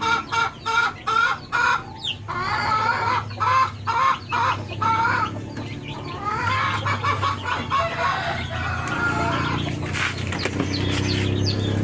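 Chickens clucking: a quick run of clucks, then longer wavering calls. A low engine hum comes up near the end.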